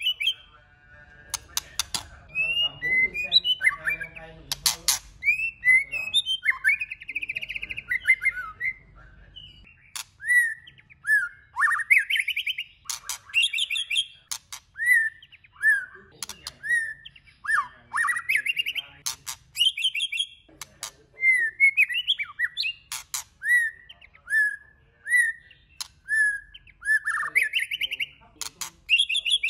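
White-rumped shama singing a varied song of clear whistled phrases that rise and fall, with sharp clicks between them. In the second half the short phrases follow one another about once a second.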